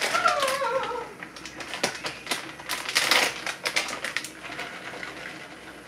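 Plastic package of bacon bits crinkling and crackling as it is handled and opened, irregular and clicky, easing off near the end. A short falling, voice-like tone at the very start.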